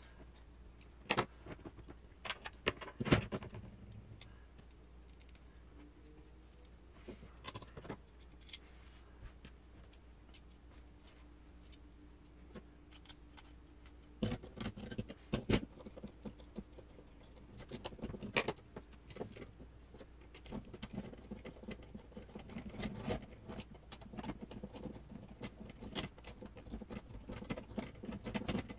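Small metal parts of an RC crawler leaf spring clinking and rattling as they are handled, with scattered sharp clicks. In the last third, a denser run of small clicking as screws are driven in with a hand screwdriver.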